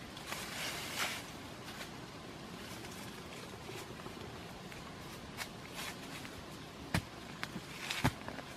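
Scraping and rustling in dry leaf litter and soil as a wooden stick works the ground, with a few sharp knocks near the end.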